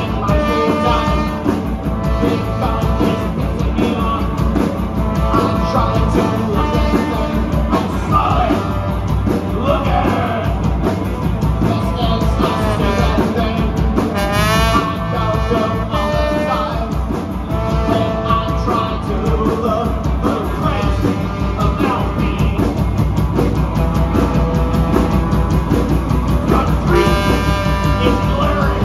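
Live punk rock band playing: a trombone carries held notes and slides over two electric guitars and a drum kit.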